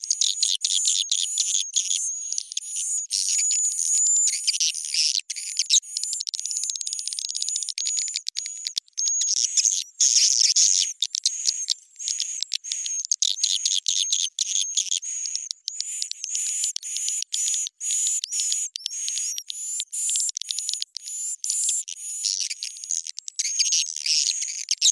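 Swiftlet lure-call recording ('suara panggil walet'), pitched up and sped up: dense, rapid, high twittering chirps and trills of swiftlets with a thin, steady high whistle running through, and no low sound at all.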